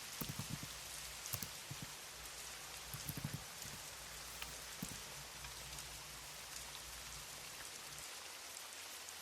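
Steady rain ambience, a soft even hiss, with a few scattered clusters of keyboard keystroke clicks in the first half. A low hum underneath cuts off about eight seconds in.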